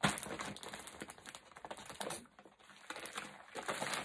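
A stiff brown paper parcel crinkling and rustling as it is handled and pulled open, in short crackly bursts with a quieter pause a little past the middle.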